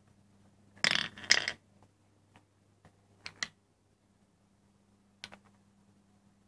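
Wooden marble automaton running: steel balls and cam-lifted wooden blocks clatter briefly about a second in, then give two sharp clicks near the middle and one more later. Under it runs a faint steady hum from its small electric gear motor.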